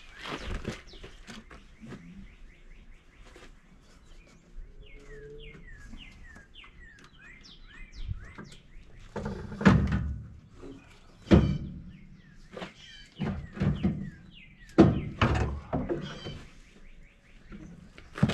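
Bendix Tru-Flo 550 air compressor being worked out of an International DT466E engine's front cover: a handful of heavy metal thunks and knocks in the second half. Before them a bird chirps a run of short, falling notes.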